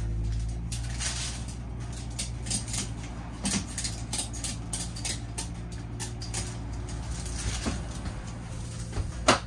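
Tie-down strap hardware being worked: irregular metal clicks and clinks, with one sharp clank near the end, over a steady low hum.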